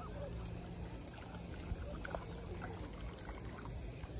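Small sea waves lapping and trickling at the water's edge, with a faint steady low hum underneath.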